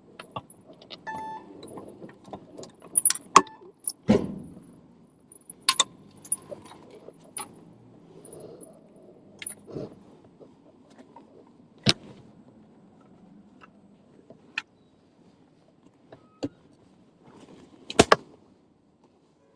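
Keys jangling amid irregular sharp metallic clicks and knocks of something being handled, with a low rustle between them.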